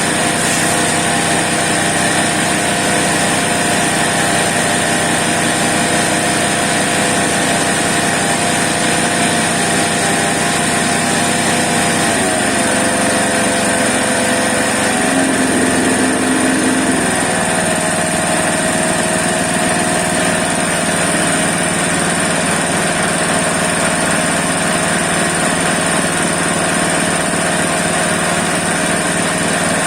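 Small engine of a grass chopper machine running steadily at speed. Its pitch dips for several seconds about midway, then picks back up and holds steady again.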